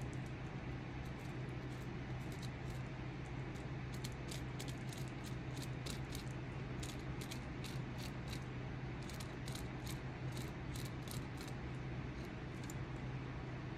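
Hand carving tool paring a wooden walking stick: short, sharp scraping cuts in irregular runs of a few strokes a second, over a steady low hum.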